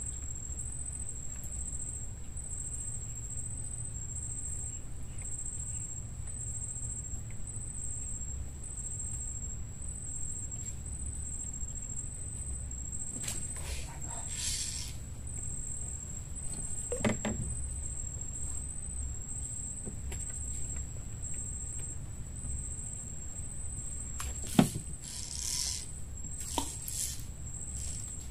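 Insects chirring with a steady, very high-pitched trill over a low, even rumble. A few short knocks and rustles break in, the sharpest near the end.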